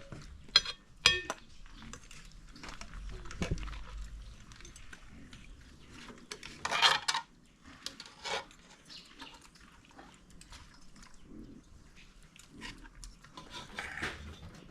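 Scattered clinks, knocks and scrapes of utensils against dishes and pots as cooked food is handled, with a louder clatter about seven seconds in.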